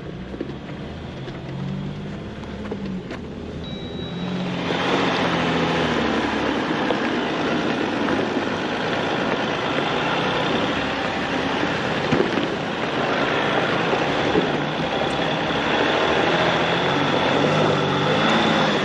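An off-road vehicle's engine running, with a wavering low engine note; from about four and a half seconds in a loud steady rushing noise of the vehicle on the move covers it.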